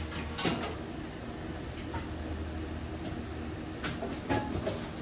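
Kitchen sounds: a steady low hum with a few short clinks and knocks of metal utensils, one about half a second in and two close together around four seconds in.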